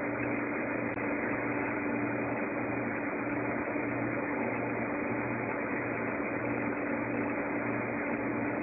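Steady machine hum and hiss, with a low hum that swells and fades in a regular rhythm.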